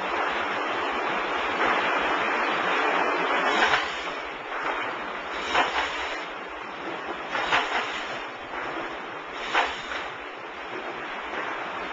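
W & H tilt tray sortation conveyor running: a steady mechanical rush from the moving tray carousel, with four sharp clacks about two seconds apart from about four seconds in.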